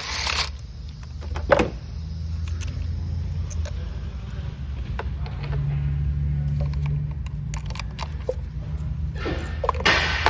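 Ignition coil packs being unbolted and pulled from a four-cylinder engine: scattered tool clicks and metal handling noises, with a short whirring burst of a power tool at the start and another about nine seconds in. A steady low hum runs underneath.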